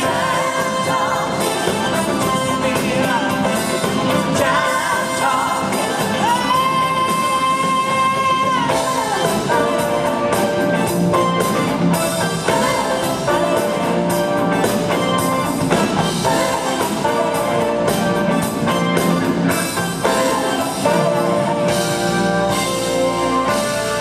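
Live band playing a song on stage: drum kit, acoustic and electric guitars and bass under a lead vocal, with one note held for about two seconds partway through.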